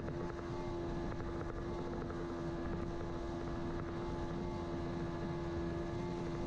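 Outboard motor running at a steady speed, a constant drone with a fixed pitch.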